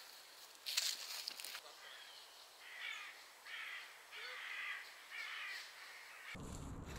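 A short rustle about a second in, then a bird cawing four times, each call harsh and about half a second long, less than a second apart. A low rumbling noise comes in just before the end.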